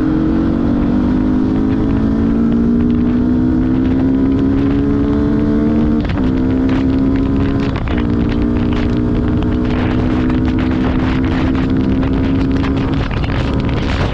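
Yamaha R15's single-cylinder engine pulling under throttle as the motorcycle accelerates, its pitch climbing slowly, with two brief dips about six and eight seconds in as gears are shifted, then holding steady. Wind rumbles on the microphone underneath.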